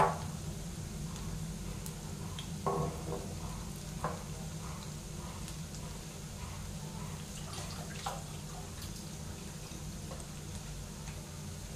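Onion bhajis (kanda bhaji, batter-coated onion fritters) deep-frying in hot oil in a pan: a steady sizzle with scattered pops and crackles, loudest in a sharp click at the very start and a short burst about three seconds in.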